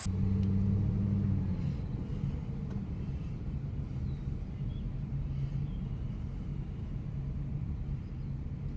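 A vehicle engine running steadily at idle, a little louder for the first second and a half.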